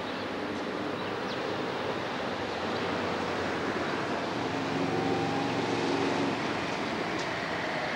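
Steady city traffic noise, with an engine hum that swells about halfway through.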